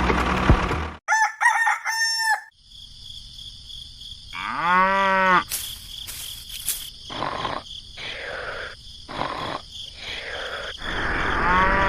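A rooster crowing, among other farmyard animal calls, in a few separate arching cries.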